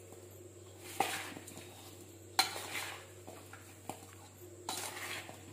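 Cut raw mango pieces being mixed with pickle masala in a container, a soft stirring sound with a few sharp clinks against the vessel, about a second in and again after two seconds.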